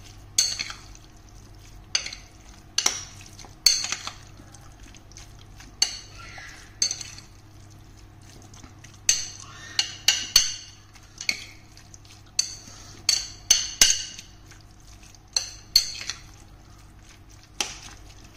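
A metal spoon stirs and scrapes a wet pork filling in a ceramic bowl, clinking against the bowl's side at irregular intervals, with a few seconds of quieter stirring about halfway through.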